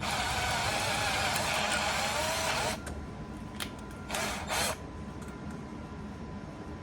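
Cordless drill/driver running a self-tapping screw into a steel bracket plate: one long run of nearly three seconds with the motor pitch wavering under load, then two short trigger bursts about a second later.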